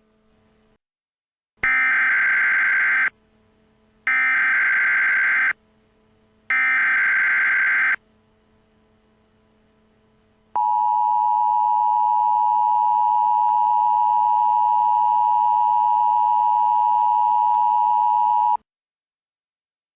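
Emergency Alert System tones: three bursts of buzzing SAME header data, each about a second and a half long, then the steady two-tone attention signal held for about eight seconds before it cuts off abruptly.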